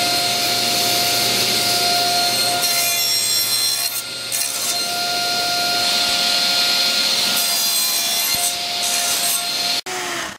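Table saw running with its blade cutting grooves in a wooden board pushed through on a sled: a steady, loud whine with a rough cutting noise, which cuts off abruptly near the end.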